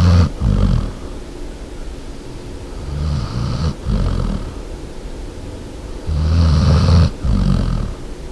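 Basset hound snoring loudly: deep, rattling snores with a breathy hiss, three long snores about three seconds apart.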